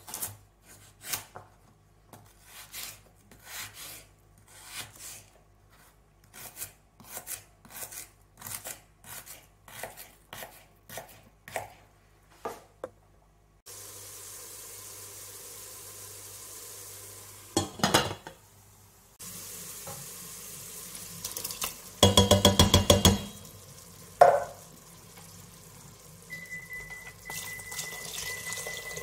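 Kitchen knife chopping carrots on a plastic cutting board, about two cuts a second. Then diced carrot, celery, onion and leek frying in a steel pan with a steady sizzle, broken by a short burst of rapid clattering and a single clunk from the pan, the loudest sounds. Near the end liquid is poured into the pan.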